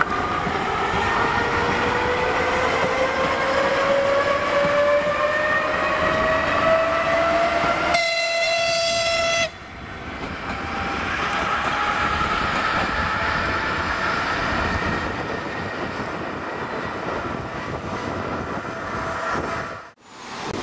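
TU10 narrow-gauge diesel locomotive pulling away, its running note rising steadily in pitch. About eight seconds in comes a loud horn blast of a second and a half that cuts off abruptly. After that the locomotive runs on more quietly.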